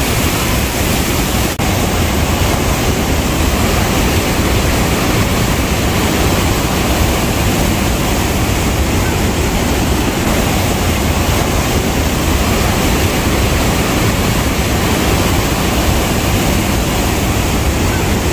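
Loud, steady roar of Niagara's Bridal Veil Falls crashing onto the rocks at close range, with churning spray and white water. There is one brief dip in the sound about a second and a half in.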